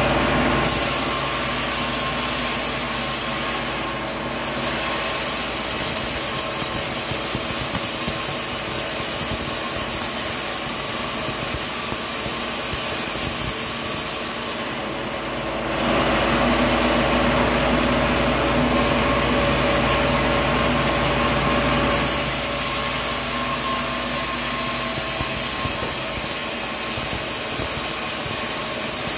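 Sawmill machinery running steadily as a saw cuts through coconut tree wood. The level dips briefly about four and fifteen seconds in.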